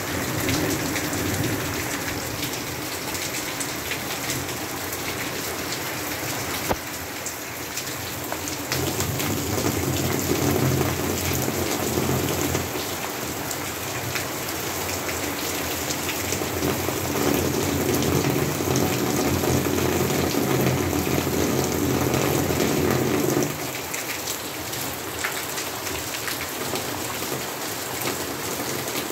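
Steady rain pattering down. From about nine seconds in there is a louder low rumble underneath, which cuts off suddenly about fourteen seconds later.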